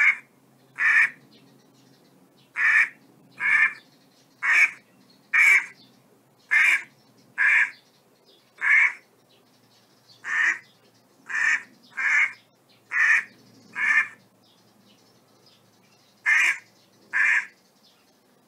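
A duck quacking over and over: short loud calls about one a second, often in pairs, with a pause of about two seconds before the last two.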